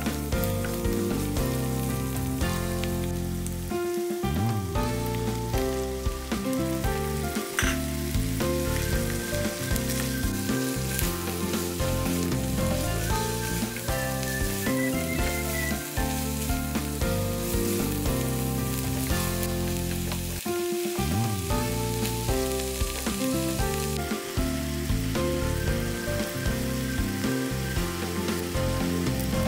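Ingredients for pansit guisado sizzling steadily as they are stir-fried in a pan, with background music playing over it.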